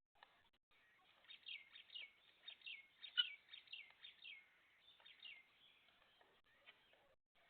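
Chicks peeping: a run of about ten short, high peeps, each falling in pitch, roughly two a second, then stopping.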